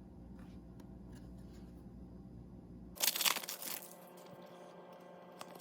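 A foil hockey card pack wrapper torn open and crinkled, a short burst of about a second, about three seconds in.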